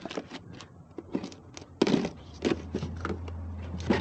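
A string of knocks and clunks from parts being handled and set down, the loudest about two seconds in and another just before the end. A steady low hum comes in about halfway through.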